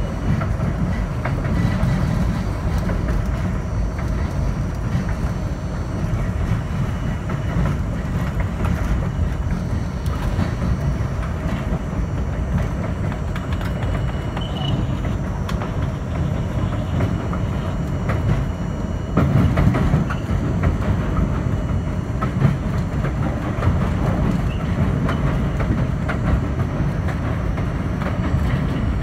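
R42 subway car running along an elevated line, heard from inside the front car: a steady low rumble of wheels and running gear with irregular clicking over rail joints, getting louder for a few seconds about two-thirds of the way through.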